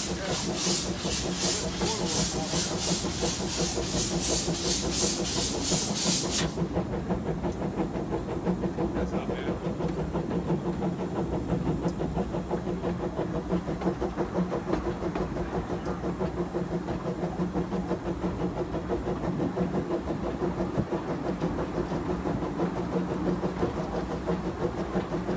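Ride-on garden-railway steam locomotive working along, its exhaust chuffing with hiss at about three beats a second. About six seconds in the chuffing stops abruptly as steam is shut off, leaving the steady rumble of the train rolling on the rails.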